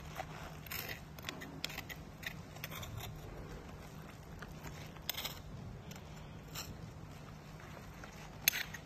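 A stainless steel spoon scraping and crunching flakes of solidified phase-change material off a concrete floor, in scattered short scrapes and clicks, the loudest near the end. A steady low hum runs underneath.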